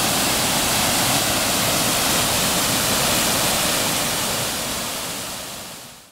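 Waterfall: a steady rush of falling water that fades away over the last second or so.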